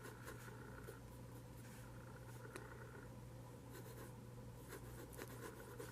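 Lamy Safari fountain pen with a fine nib writing on Leuchtturm1917 notebook paper: faint, irregular scratching of the nib strokes.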